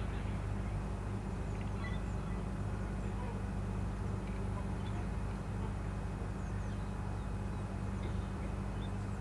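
A steady low engine drone, unchanging throughout, with faint scattered bird chirps above it.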